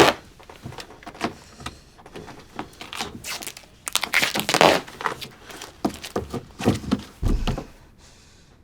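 Irregular knocks, clicks and thuds in a small room, with a louder scraping, rustling stretch about four seconds in and a heavy low thump near the end.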